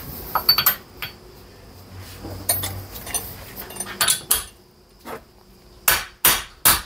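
Hammer blows on a drift (a socket extension) knocking the old, stiff-feeling bearing out of a motorcycle's aluminium rear sprocket carrier held in a vise. There are sharp metallic strikes: lighter clinks about half a second in, two blows around four seconds in, and three louder ones near the end.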